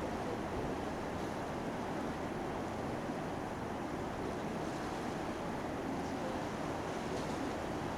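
Steady rushing noise of wind and water around a moving cruise ship, with a faint low rumble underneath.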